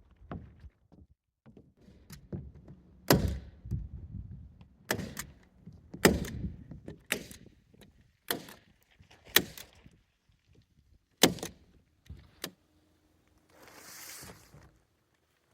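Sharp knocks, about eight of them roughly a second apart, as nails are driven into plywood roof sheathing, followed by a short hiss near the end.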